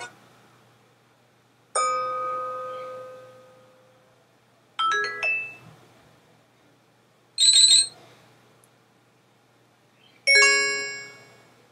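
BlackBerry Bold 9700 alert tones played one after another: four short tones, one every two to three seconds. There is a bell-like chime that rings out, a quick two-note tone, a short bright burst, and another chime that rings out.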